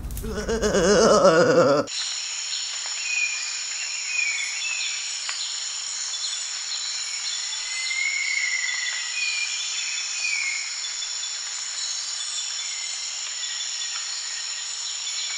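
A loud wavering sound, rising and falling in pitch, for about the first two seconds, then cut off. Then a nature ambience: a steady high buzzing of insects with scattered short chirping calls.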